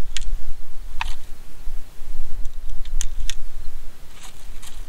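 Small irregular clicks as .22 rimfire cartridges are dropped one at a time into the tubular magazine of a Rossi Gallery pump rifle, brass clinking on the steel tube, about six in all. Heavy wind rumble on the microphone lies under them.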